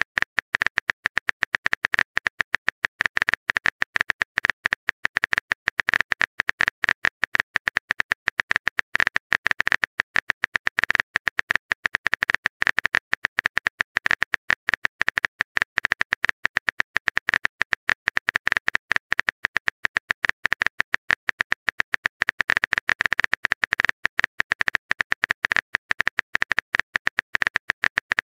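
Phone keyboard typing sound effect: a rapid, continuous run of short clicks as a text message is typed out.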